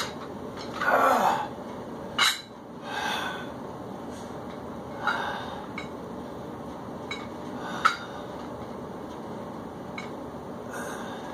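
Forceful exhales and heavy breathing of a man lifting dumbbells, with two short metal clinks from the dumbbells, over a steady background hiss.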